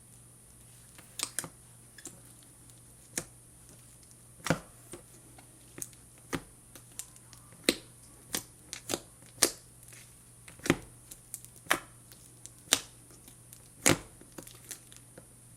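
Slime being worked by hand, giving sharp, clicky pops about once a second at an uneven pace.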